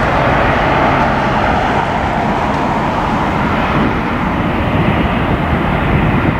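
Jet airliner taking off: a steady, loud rushing noise from its engines at takeoff thrust. The higher part of the sound thins slightly after about four seconds as the aircraft lifts off and climbs away.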